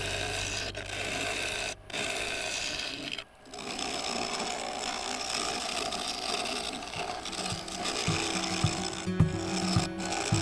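Hand-held scraping tool cutting the inside of a yew and epoxy-resin bowl spinning on a wood lathe: a steady rasping scrape, cut off briefly twice, with background music. Near the end a low hum and a few knocks come in.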